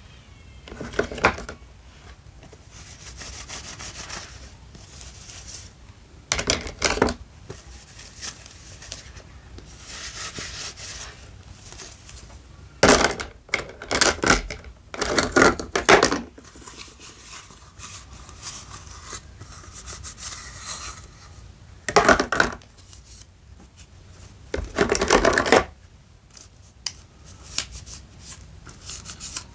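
Miniature play food being cut with a toy knife: short sawing and scraping strokes in bursts a few seconds apart, with quieter rubbing and handling of small toy kitchen pieces between.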